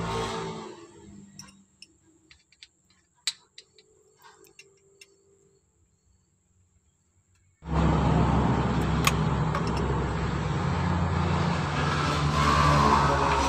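A few light metallic clicks and taps, then a loud steady mechanical rumble with a low hum that starts abruptly a little past halfway and keeps going, like an engine or machine running.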